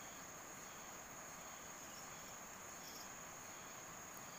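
Steady, high-pitched insect chorus of crickets, one unbroken shrill tone over faint outdoor hiss.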